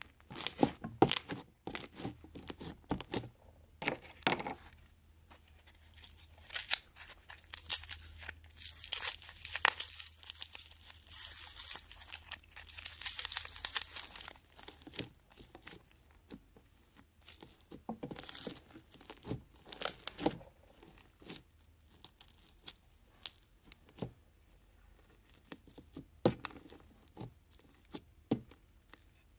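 Crunchy slime made with Tide detergent and Elmer's Magic Liquid being squeezed and played with by hand, giving a run of sharp crackles and pops. The crackling is densest and crinkliest a few seconds in, then thins out to scattered clicks.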